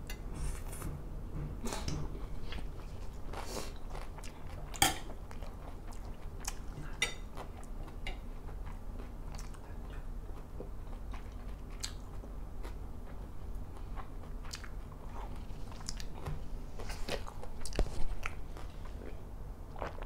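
A person chewing and biting mouthfuls of Thai squid salad, heard close through a lapel microphone, with scattered short clicks of fork and spoon on the plate and a few louder knocks, the loudest about five seconds in and another near the end.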